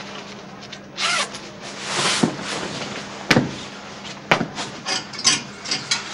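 Clothes rustling and brushing as a person undresses and changes, in several short bursts that come quicker near the end, with two sharp clicks about a second apart midway.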